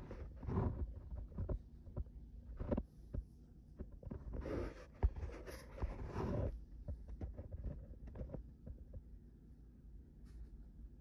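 Domestic cat purring close to the microphone, a low, steady throb, with several bursts of rustling from fur and handling; the longest comes about halfway through.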